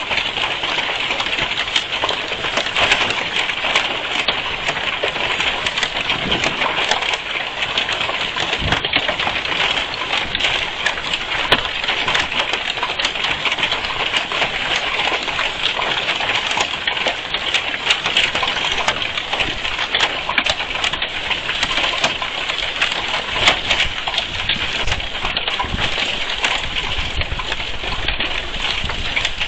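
Heavy rain and hail beating down steadily in a dense patter, with many separate small impacts of hailstones in the wash of noise.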